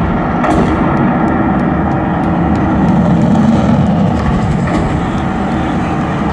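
Large stadium crowd cheering and shouting in a steady, loud din, with a faint crackle of an overloaded microphone over it.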